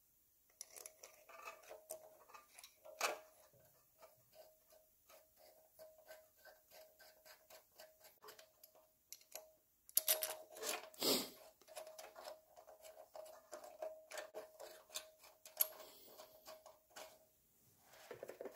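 Small metal clicks and taps of hand tools and parts against a small-engine carburetor as it is fitted back onto the engine, with a couple of louder knocks, about three seconds in and again around ten to eleven seconds.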